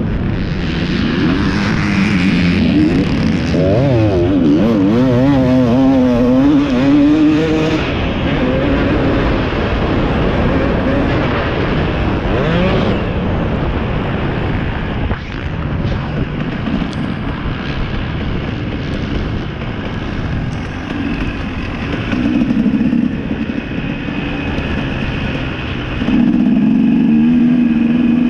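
450-class motocross bike's engine, heard from on the bike, revving hard and rising and falling in pitch as the rider races down the track. It holds a loud steady high rev near the end.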